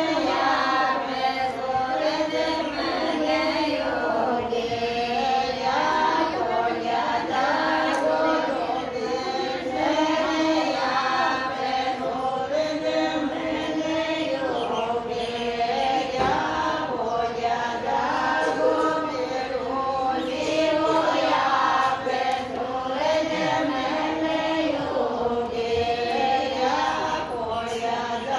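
A group of women singing together, one continuous song with no pause.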